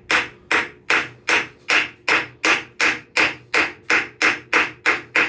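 Ball-peen hammer tapping lightly on a pine wood block held against a lathe spindle's nose, an even run of about three taps a second, driving the South Bend 9A spindle into its headstock bearings.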